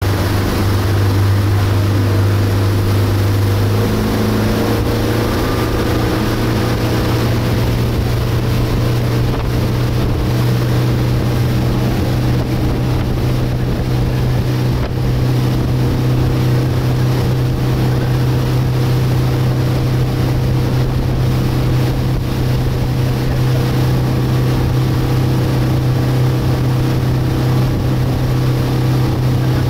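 Outboard motor driving a speedboat at speed: a loud steady drone that steps up in pitch about four seconds in, over the rush of water from the wake.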